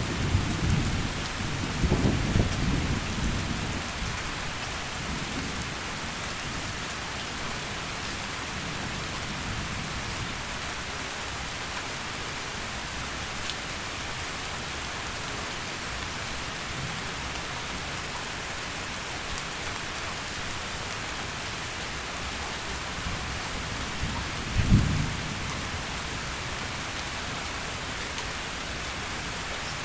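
Steady heavy rain hissing evenly. Thunder rumbles at the start and dies away within a few seconds, and a single short clap of thunder comes about five seconds before the end.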